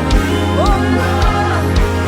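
Worship band music: a steady kick drum just under two beats a second under sustained bass and keyboard, with a sliding melody line above.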